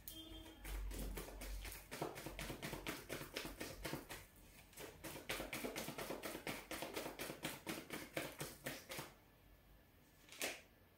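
A deck of oracle cards being shuffled by hand. The cards click in a quick, even run of about five a second, stop about nine seconds in, and are followed by a single tap near the end.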